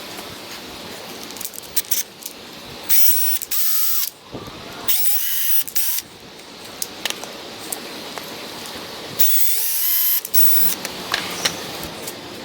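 Power drill running in three short bursts of about a second each, its whine rising in pitch as it spins up, with clicks and knocks between the bursts.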